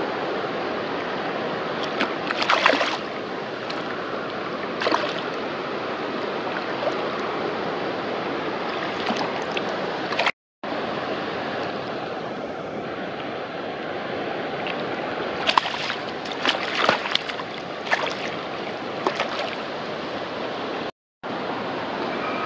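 River water rushing steadily, with sharp splashes and sloshing from a barbel thrashing in a landing net at the surface: a few near the start, and a cluster over several seconds in the second half. The sound cuts out briefly twice.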